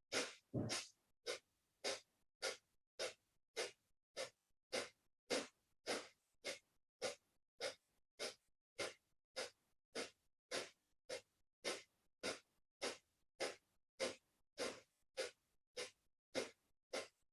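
Kapalbhati breathing: a steady series of short, forceful exhalations through the nose, just under two puffs a second, with silence between them.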